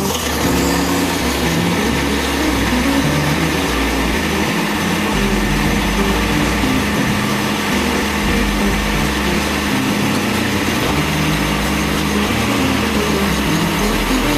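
An engine running steadily at a constant speed, with no change through the stretch.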